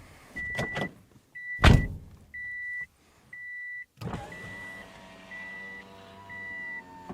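A car's warning chime beeps steadily about once a second. A loud knock comes just under two seconds in. From about four seconds in, the Subaru's power window motor runs with an even hum, raising the glass on a newly replaced window regulator.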